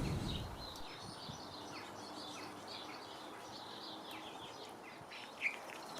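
Faint garden birdsong: many short chirps and twitters from small birds over a soft outdoor hiss, with one louder chirp near the end.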